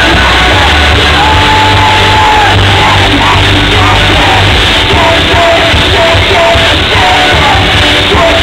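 Live pop-rock band playing loud, with a held sung note about a second in followed by shorter sung phrases, and yelling from the crowd close to the microphone.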